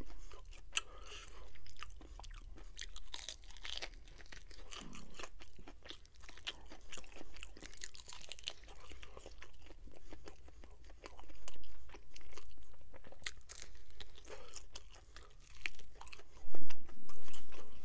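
Close-miked chewing and crunching of a crispy fried chicken wing, with many small crunches and wet mouth clicks. There are a few louder moments about twelve seconds in and near the end.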